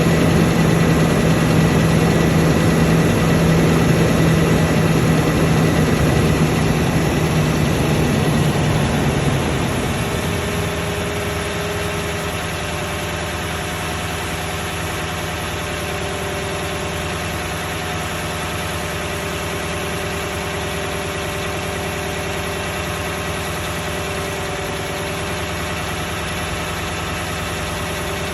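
Toyota 1UR-FE V8 engine running, the engine whose knock is under investigation. It runs faster and louder for about the first ten seconds, then settles to a steady, quieter idle.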